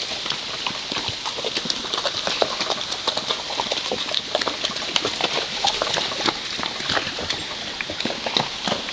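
Horses walking on a rocky dirt trail, their hooves clip-clopping in many irregular steps over a steady hiss.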